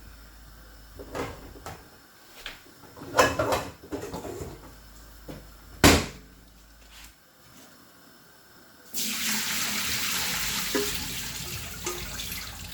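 A few sharp knocks and clatters of kitchen things being handled, then about nine seconds in a kitchen tap is turned on and water runs steadily into the sink, rinsing the washed chicken feet and pig's tail in a strainer.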